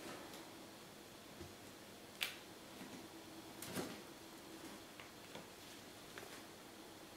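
A few small, sharp clicks and taps in a quiet room with a steady low hum. The sharpest click comes about two seconds in and another follows near four seconds.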